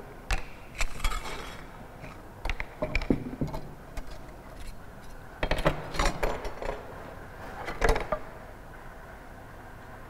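Irregular clicks and clinks of small laboratory items being picked up and set down on a table and glass plate, with a cluster a little past halfway and one sharp knock late on.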